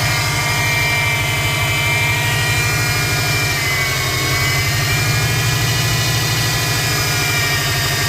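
A 2005 Subaru Impreza WRX's turbocharged flat-four engine running at a steady low speed, with a steady high-pitched whine over it that dips slightly in pitch about four seconds in. It is an unexplained whine that the owner cannot place; he also hears a turbo whistle when driving.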